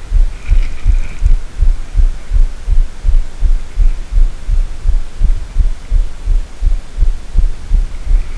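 Spinning reel cranked hard against a fighting carp, heard as a fast, even run of low thuds, about three or four a second.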